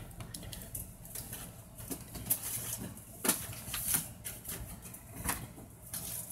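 Faint, scattered clicks and taps, about a second apart, over low room noise.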